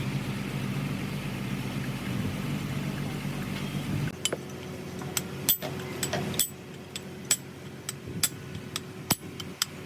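A steady low mechanical hum that cuts off about four seconds in, then a run of sharp metallic clinks and taps from tools and gearbox parts being handled.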